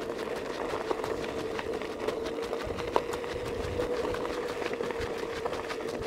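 A small motor's steady hum, slightly wavering in pitch, with light irregular ticks and clicks over it and one sharper tick about three seconds in.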